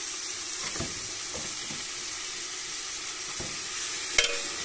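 Pork trotter and knuckle pieces sizzling steadily as they brown in hot oil in a metal pot. About four seconds in, a metal spoon clinks sharply against the pot.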